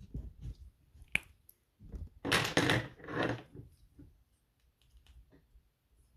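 Hard plastic Bionicle pieces clicking and clattering as they are pulled apart by hand: a sharp click about a second in, then about a second of louder clattering and scraping, then a few faint ticks.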